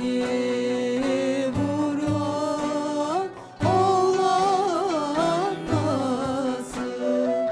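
Turkish folk song (türkü) sung by women with instrumental accompaniment: a held, ornamented vocal line that wavers around its notes, over low beats falling in pairs about every two seconds, with a brief break about three and a half seconds in.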